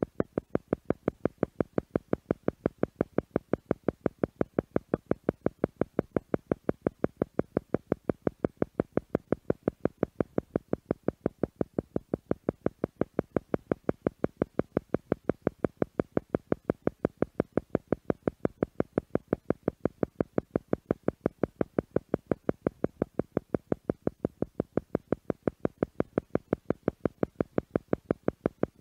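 Theta meditation tone: a tone pulsing on and off at a fast, perfectly even rate, several times a second, without a break.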